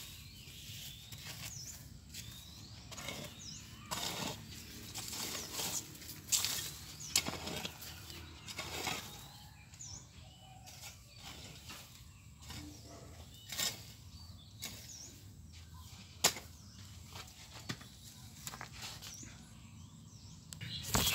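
Long-handled hoe scraping and scratching through dry, loose soil in irregular strokes, with a few sharper scrapes. A small bird chirps briefly every second or two in the background.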